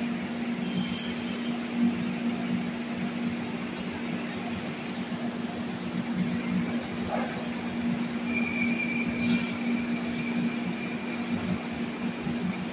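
Metro train standing at the platform, its onboard electrical equipment humming steadily with faint high whines; a higher steady whine comes in about eight seconds in.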